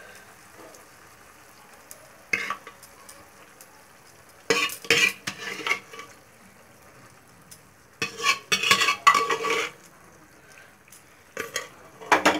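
A steel ladle stirring and scraping thick sarson ka saag (mustard-greens purée) in a kadai, in several short bouts, over a steady low sizzle of the onion tadka frying underneath.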